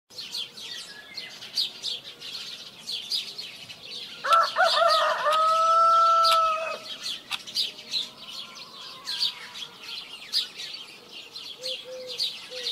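Small birds chirping repeatedly, with a rooster crowing once about four seconds in: a call that rises and then holds its note for about two seconds before dropping off.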